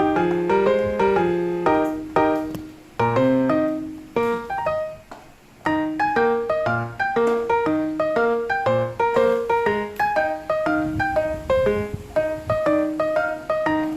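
Background piano music: a steady run of struck notes with two short pauses in the first half.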